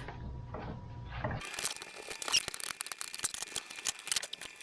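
Plastic top cover of a new chainsaw being unfastened and taken off: a quick run of small clicks and plastic rattles starting about a second and a half in.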